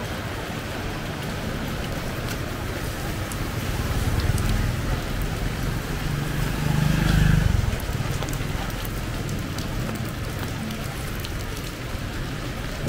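Heavy rain falling steadily, with scattered drops ticking close by. A low rumble swells about four seconds in and more strongly about seven seconds in.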